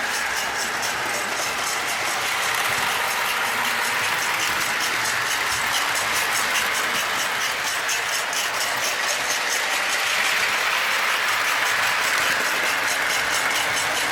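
Lionel Iron Horse freight set locomotive running on O-27 three-rail track: a steady motor and wheel whir with fast, regular ticking.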